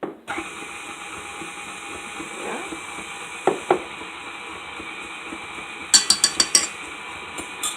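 Electric mixer switching on and running steadily with a motor whine as it beats cream cheese filling, with a quick run of sharp clicks about six seconds in.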